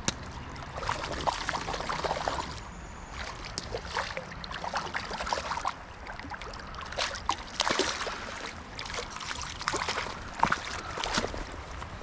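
Creek water trickling, with irregular short splashes and clicks throughout.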